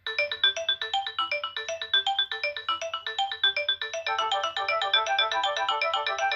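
Nokia 6630 ringtone playing: a fast polyphonic tune of short, quick synthesized notes that starts abruptly and grows fuller, with more layered parts, about four seconds in.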